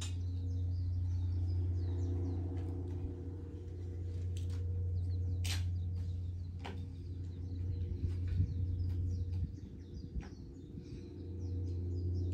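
Low steady hum with small birds chirping throughout, and a few sharp clicks in the middle.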